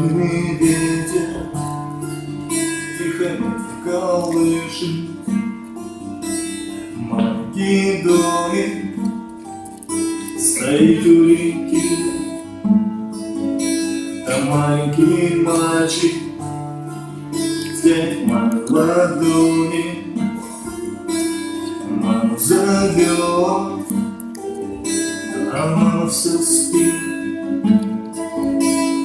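A song played on strummed acoustic guitar, with a voice singing over it.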